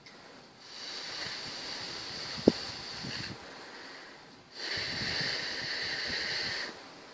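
Two long breaths blown out onto wet nail polish to dry it, each a steady hiss lasting two to three seconds, with a short sharp pop partway through the first.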